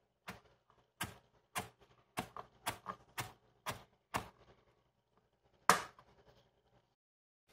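Knife chopping freshly minced ginger root on a cutting board: about a dozen sharp knocks at an uneven pace, the loudest near six seconds in, then stopping.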